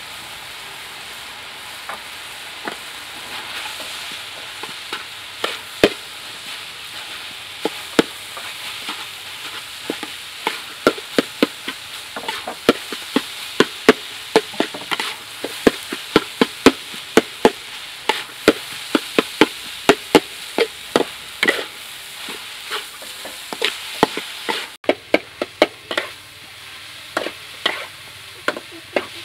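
Rice and vegetables sizzling in a hot steel wok while being stir-fried, with a metal spatula knocking and scraping against the wok. The strikes are sparse at first and become quick and frequent from about ten seconds in.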